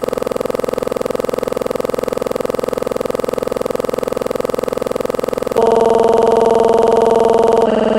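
Background music: held synthesizer chords that change to a new chord about five and a half seconds in and again near the end.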